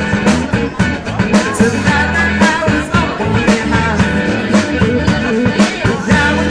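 Live band playing rock music: a steady drum beat over bass, with a voice singing.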